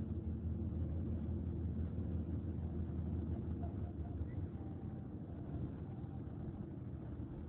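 Low, steady rumble of engine and road noise heard from inside a moving vehicle, easing slightly after about four seconds.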